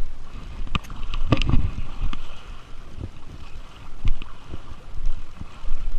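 A weighted cast net thrown into a fast, muddy river: sharp splashes and knocks, loudest in a cluster about a second and a half in as the net lands, over steady running water. Wind buffets the microphone with a low rumble.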